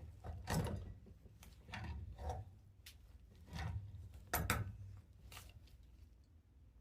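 Wrench tightening a threaded pressure relief valve fitting: a series of irregular metal scrapes and clicks as the doped threads are turned.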